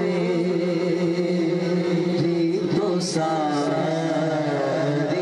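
Men singing a naat into microphones over a PA: a wavering, ornamented melodic line over a steady held drone.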